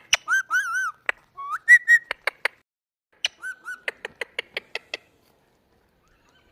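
Pet parrot calling: runs of short sharp clicking notes, about six a second, broken by warbling whistles, stopping about five seconds in.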